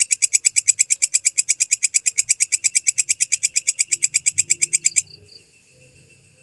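Walang kecek katydid (bush cricket) stridulating: a fast, even, shrill pulsed call of about ten chirps a second, which cuts off abruptly about five seconds in.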